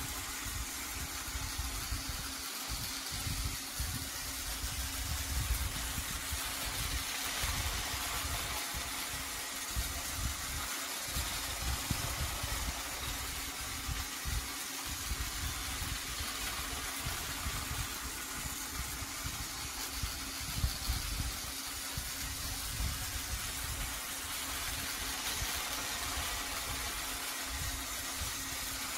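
Trackmaster Bertram, a battery-powered motorised toy train, running steadily on its plastic track: a constant small-motor hum over an uneven low rumble.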